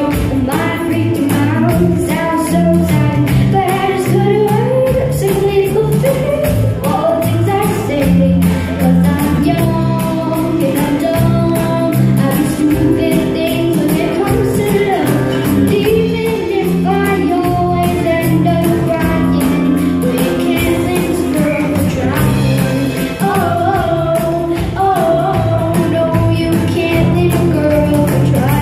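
A woman singing a pop song over instrumental accompaniment with a steady beat.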